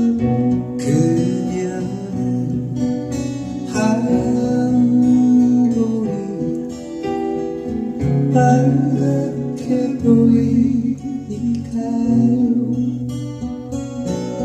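Acoustic guitar strummed in a live Korean pop song, with a man singing over it and a band accompaniment.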